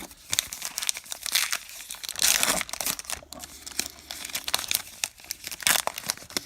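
Crinkling and rustling of a foil trading-card pack wrapper, in a quick run of irregular crackles, as baseball cards are handled.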